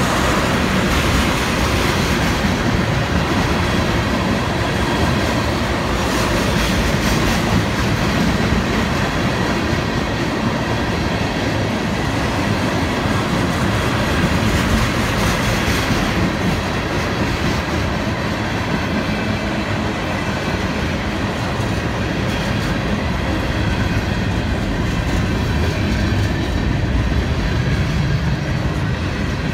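A Florida East Coast Railway freight train's cars rolling steadily past: a line of tank cars, then a boxcar and covered hoppers near the end, their wheels running over the rails.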